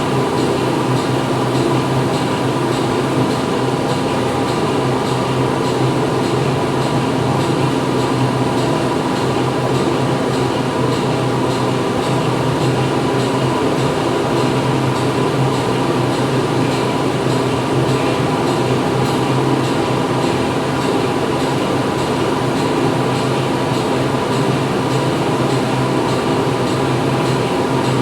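Factory machinery running steadily: a loud, continuous mechanical drone with several steady hum tones.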